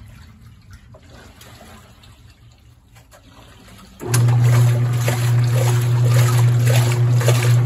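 Speed Queen TC5 top-load washer with a transmission: a faint swish of water, then about four seconds in the motor and transmission start with a sudden, loud, steady hum as the agitator churns back and forth, sloshing water and clothes. The machine is the noisy, traditional transmission-driven type.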